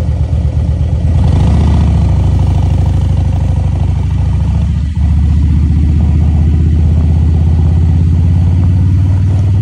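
Engine of the vehicle carrying the camera, running steadily under way with a strong low hum and a regular pulse. The engine briefly dips about five seconds in, then settles back to the same steady running.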